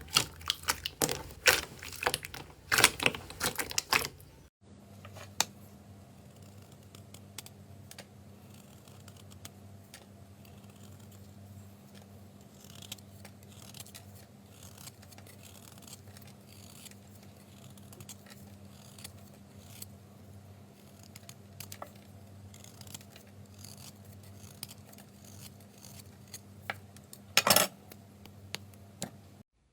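Slime being handled: rapid sticky clicks and crackles for the first few seconds, then a faint steady hum with sparse soft clicks, and a brief loud crackle near the end.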